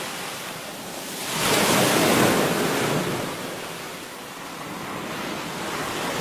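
Rushing water from a dam spillway's gates discharging. It swells louder about a second and a half in, then settles back to a steady rush.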